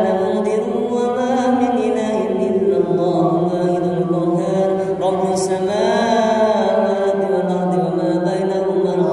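A young man's solo voice reciting the Qur'an in melodic, drawn-out tilawah style, holding long wavering notes that glide between pitches.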